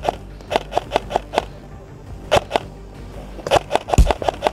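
Airsoft rifle firing single shots in uneven strings: about five sharp cracks in the first second and a half, a pair around the middle, then a quick run of about six near the end, one of them with a deep thump about four seconds in.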